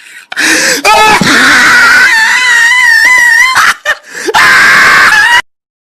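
A person screaming: short rising cries, then a long, shrill, high-pitched scream held for about a second and a half, and another scream that cuts off abruptly near the end.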